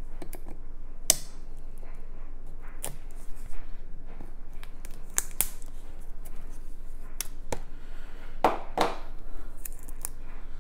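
Board game components and packaging being handled during an unboxing: scattered light clicks and taps of cardboard and plastic pieces, with a brief rustle of packaging near the end.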